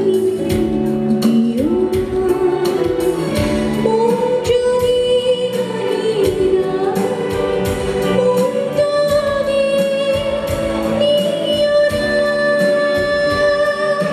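A song: a singer holds long, sustained notes over instrumental accompaniment with a steady percussion beat.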